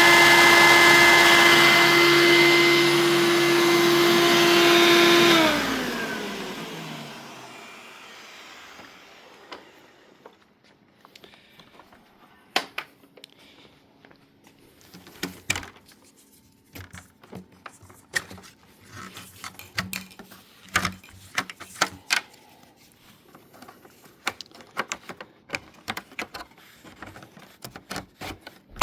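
Hoover Elite II upright vacuum cleaner's motor running with a steady whine, switched off about five seconds in and winding down, its pitch falling over about two seconds. After that, scattered clicks and knocks of the machine being handled.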